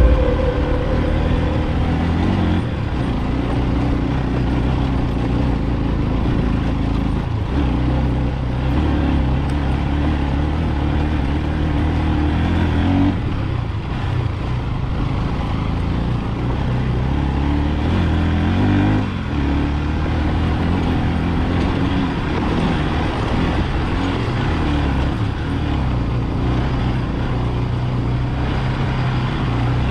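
Motorcycle engine running under way, its note shifting up and down with the throttle, over wind and road noise.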